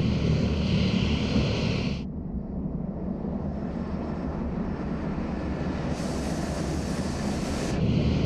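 Steady low rumble of an engine-like machine, with a layer of hiss that cuts in and out abruptly three times.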